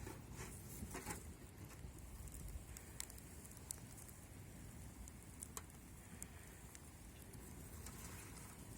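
Faint campfire crackling: scattered sharp pops a second or more apart over a low steady rumble.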